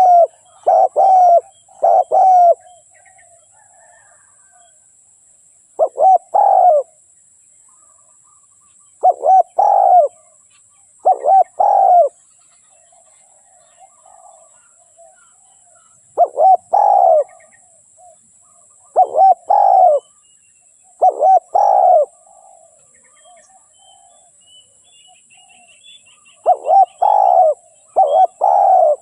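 Spotted dove (tekukur) cooing: short phrases of two to four coo notes, repeated every few seconds with quiet gaps between.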